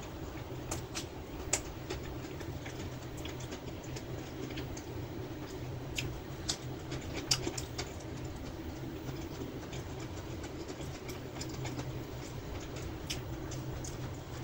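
Close-up chewing with the mouth closed: soft, wet mouth clicks and smacks scattered irregularly through, over a steady low background hum.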